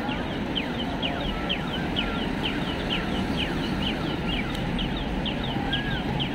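Rapid high chirps, each falling quickly in pitch, several a second and somewhat irregular, over steady city street noise.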